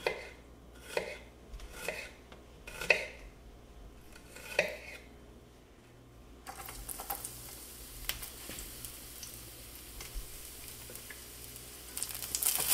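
Knife chopping on a wooden cutting board, five strokes about a second apart. Then hot oil sizzling faintly in a frying pan, growing louder near the end as minced garlic goes into it.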